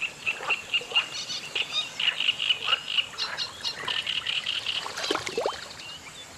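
Frogs calling: a rapid run of short, high chirps repeating several times a second, which dies away after about five seconds.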